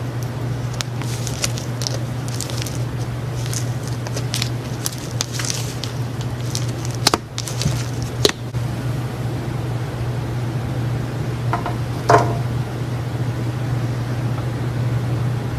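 Slime being handled: a run of short wet squishes and small crackling pops, thickest in the first half, with a couple of sharper clicks and a brief squeak later, over a steady low hum.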